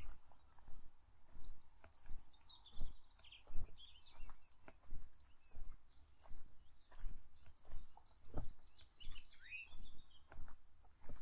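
Footsteps walking at a steady pace along a path, about one and a half steps a second. Several songbirds chirp and trill over them.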